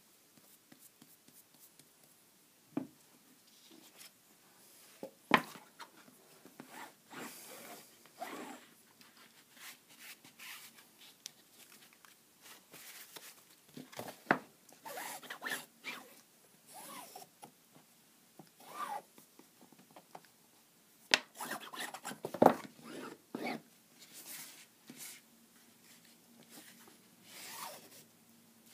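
Glued bookcloth being turned in and rubbed down onto the board wall of a tray: a string of short, irregular scraping rubs, with a few sharp knocks as the work is handled.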